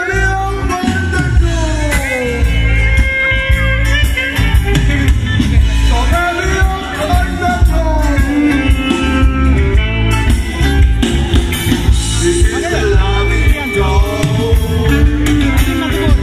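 Loud live band music with a singer over heavy bass and a beat.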